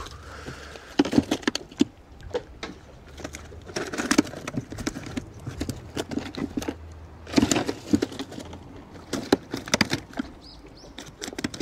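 Fish being handled in a plastic Igloo cooler box: irregular wet slaps and knocks of fish flapping and hitting the plastic, coming in clusters a few seconds apart.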